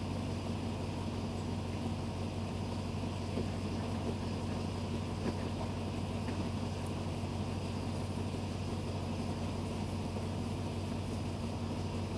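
Steady low hum of a diesel train's engine, with no rail clatter.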